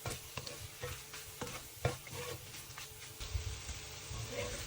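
A spatula stirring and scraping chicken and spice masala around a frying pan, with irregular scrapes and clicks, over a low sizzle of oil.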